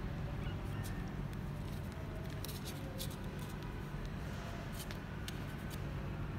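Mother cat licking and grooming her two-week-old kittens: a scatter of short wet clicks and smacks from her tongue, over a steady low background hum.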